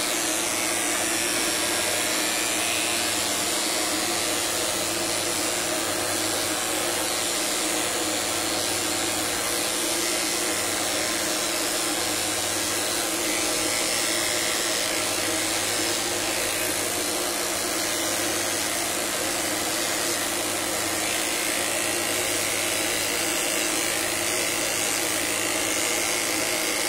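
Corded electric dog clippers running with a steady buzz over a constant airy hiss, as they are worked through a dog's coat.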